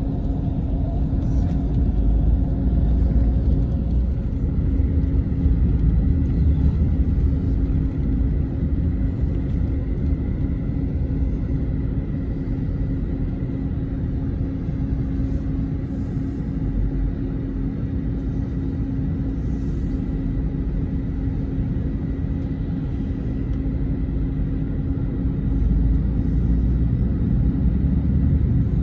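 Intercity bus heard from inside the passenger cabin while driving: a steady low engine and road rumble with a constant hum, growing somewhat louder near the end.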